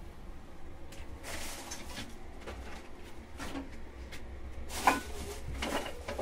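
Scattered light knocks and clatter, with one sharper, louder knock about five seconds in, over a low rumble.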